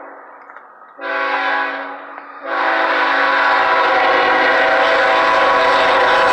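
Air horn of a CSX GE ET44AH locomotive: one blast dies away, a short blast comes about a second in, then a long blast from about two and a half seconds holds on over the rising rumble of the approaching train. This is the short-then-long close of the long-long-short-long grade crossing signal.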